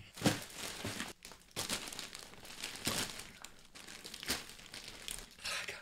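Large plastic mailer parcels crinkling and rustling as they are handled and piled one on top of another, with a few brief knocks.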